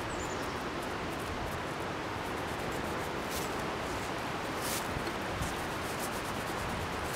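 Steady rustling hiss of outdoor background noise, with a few faint clicks.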